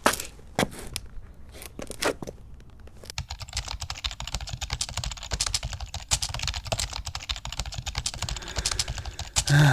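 Typing on a computer keyboard: a few separate keystrokes at first, then fast continuous typing from about three seconds in.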